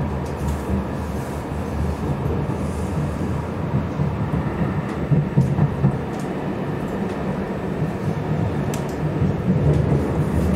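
Steady low rumble of a moving vehicle, with a few sharp clicks near the end.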